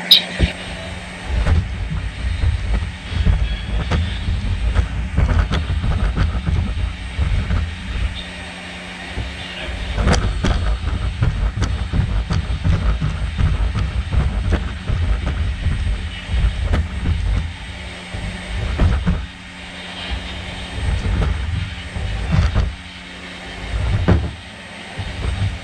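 Unitree GO2 quadruped robot dog walking: its feet thud and its leg joints clatter in a fast, uneven rhythm over a steady low motor hum, with brief pauses when it stops.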